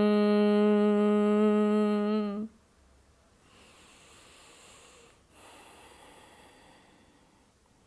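A woman humming through a closed mouth in Bhramari (humming bee) breathing: one long, steady bee-like hum at a single pitch that stops abruptly about two and a half seconds in. It is followed by two faint breaths.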